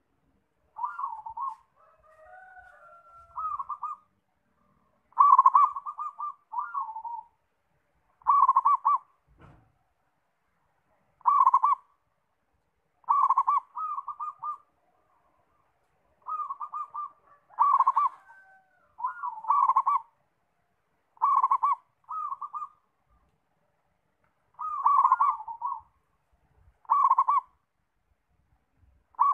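Zebra dove (perkutut) cooing: a dozen or so short, rapid-note phrases, each under a second, repeated with pauses of one to three seconds between them.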